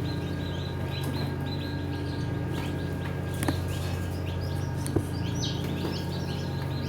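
Newly hatched parrot-beak chicken chicks peeping in many short high cheeps over a steady low hum, with two sharp clicks, one midway and one a little later.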